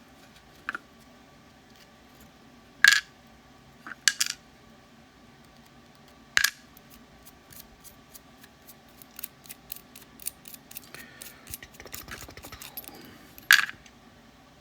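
Small metal lock parts clicking as a Medeco Biaxial camlock is worked by hand: several sharp single clicks, then a run of quick light ticks in the second half.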